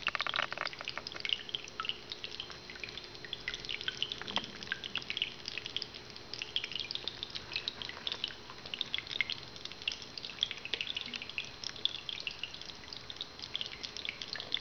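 Small decorative sphere fountain with water trickling and dripping in many irregular little splashes. A faint steady hum runs underneath.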